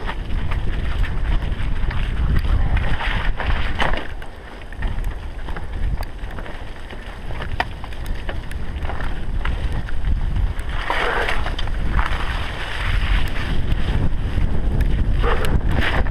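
Wind buffeting an action camera's microphone on a bicycle ridden fast over a rough dirt trail, with scattered rattles and knocks from the bike jolting over bumps. The wind swells in a few louder gusts.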